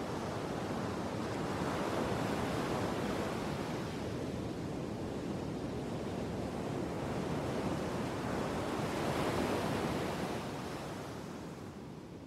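Sea surf washing in and out, swelling twice and fading out near the end.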